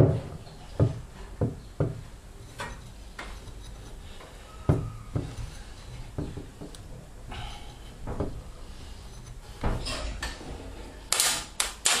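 Replacement drum spider (cruceta) of a top-loading washing machine being worked by hand onto the drum's side, giving a string of irregular knocks and clunks as the part is turned to line up with the drum's notches and pushed to seat. Sharper, brighter clattering comes near the end.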